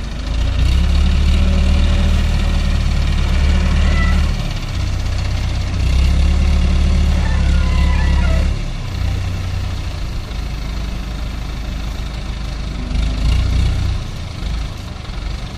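Diesel engine of an ACE 12XW mobile crane running, getting louder for a few seconds at a time: twice for several seconds, and once briefly near the end. Faint shouted voices can be heard over it.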